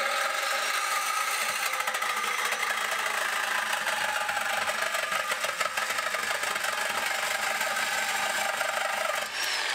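Cordless reciprocating saw cutting through a metal exhaust pipe at the muffler outlet: the motor runs steadily at full speed with the blade chattering fast against the metal, loud.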